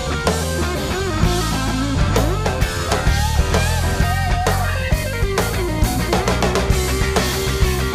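Live band playing an instrumental section: electric guitar and organ over a drum kit, with a lead line that slides and bends in pitch and steady drum hits.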